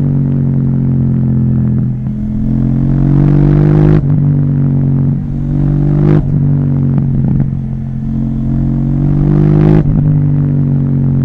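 KTM 790 Duke parallel-twin engine through an Akrapovic exhaust, riding at speed. The engine note rises under throttle and then drops abruptly three times, with a sharp crack from the exhaust at the second and third drops.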